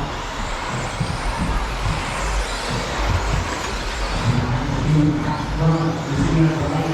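Electric 17.5 stock-class RC buggies racing around a track: a steady, dense mix of motor whine and tyre noise from several cars at once.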